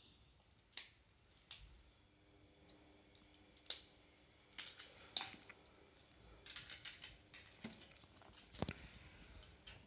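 Plastic Lego bricks clicking and rattling as they are handled and pressed together, in faint scattered clicks that come thicker about halfway through.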